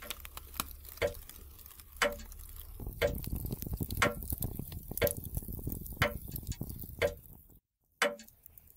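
A clock ticking about once a second, with a faint crackle and low hum between the ticks. The sound drops out briefly near the end, then the ticking resumes.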